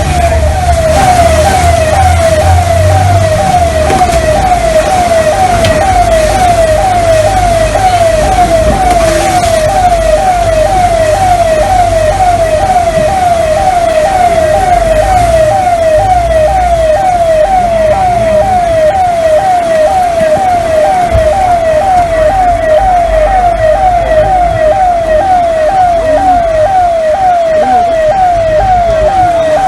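Siren-like alarm tone: a short falling wail repeating evenly a little under twice a second, over a low rumble.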